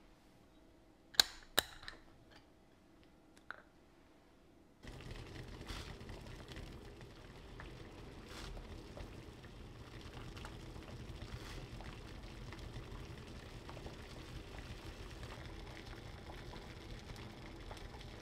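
A glass clip-top jar of roasted barley being opened: two sharp clicks of its lid and wire clasp about a second in, then a few lighter clicks. From about five seconds in, a steady bubbling of roasted barley boiling in water in a stainless steel pot, brewing barley tea.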